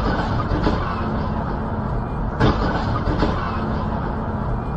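Steady car driving noise, road and engine, with two sharp knocks: one right at the start and another about two and a half seconds in.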